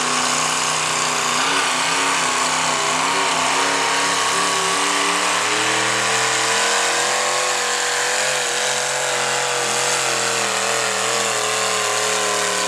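V8 engine of a hot rod pulling tractor running hard under load as it drags the weight sled. The pitch climbs over the first few seconds, then holds at high revs with a slight waver, easing off a little near the end.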